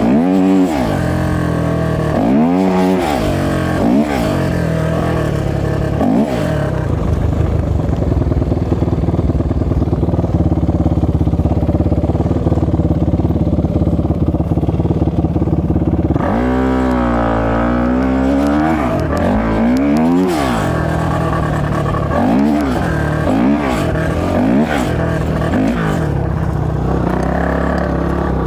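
450cc single-cylinder four-stroke off-road engine, from a dirt bike or quad, revving up and falling back again and again. About a third of the way in it holds a steadier pitch for several seconds, then returns to rising and falling swells.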